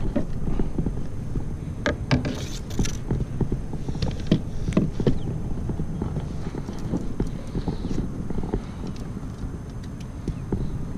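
Irregular hollow knocks and clunks on the plastic hull of a small round fishing boat as the stake-out pole is pulled up and gear is handled, busiest in the first five seconds and thinning out later.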